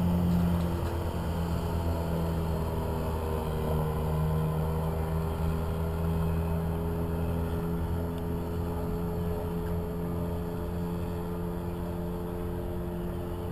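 Yamaha 3 hp two-stroke outboard motor running steadily on a small boat. Its pitch dips slightly and recovers a few seconds in, and the drone grows a little fainter toward the end.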